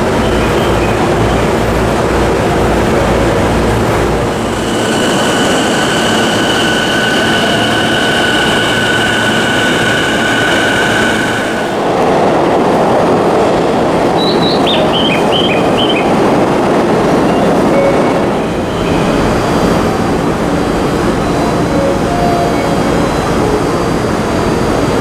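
JR East E231-series electric commuter train running, first a rhythmic low rumble, then a steady high-pitched wheel squeal for several seconds, followed by continuous train noise.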